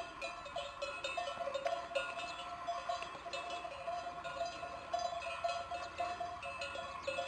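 Metal livestock bells (cencerros) clanking and ringing continuously, with many irregular strikes, as bell-wearing animals move about.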